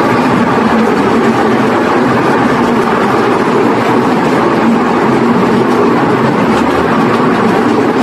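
Miniature train running steadily along its track: a loud, continuous rumble of the train and its wheels on the rails with a faint steady hum under it.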